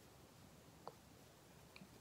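Near silence: room tone with two faint small clicks, one just under a second in and one near the end.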